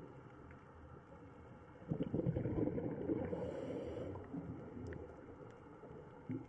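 Low, noisy underwater rumble picked up by a camera under water. It swells louder for about two seconds a couple of seconds in, then dies back.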